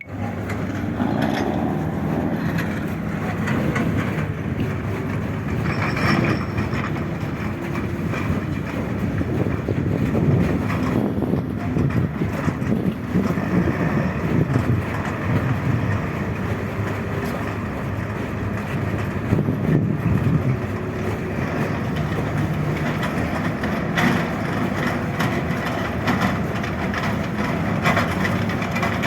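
A heavy machine's engine running steadily, with a low rumble and a few brief clanks.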